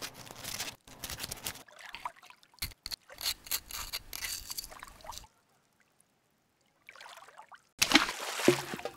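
A rolled paper sheet being pushed into a glass bottle's neck, rustling and scraping against the glass with a few sharp clicks. It stops for over a second in the middle, and a louder rustle comes near the end.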